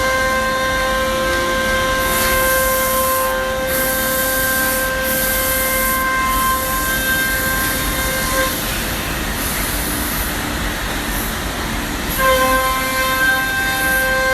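CNC router spindle running with a steady high whine while it cuts plywood. Past the middle the whine drops away for a few seconds into a rougher hiss, then comes back near the end.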